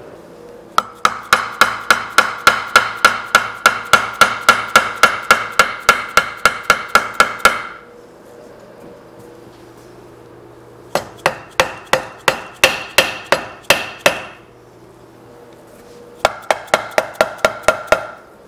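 Rapid hammer blows on the metal head housing of a DoAll drill press, about four a second, each ringing briefly. They come in three runs: a long one of about seven seconds, a shorter one a few seconds later, and a brief one near the end.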